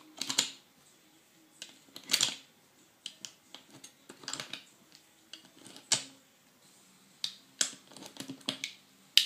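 Sharp metallic clicks at irregular intervals, a few of them louder, as .45 ACP cartridges are pressed one at a time into a SIG 1911 factory 7-round magazine, each round snapping down under the feed lips.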